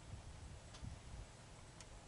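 Near silence: faint outdoor background with a low rumble and a few faint ticks, in a pause between a cat's meows.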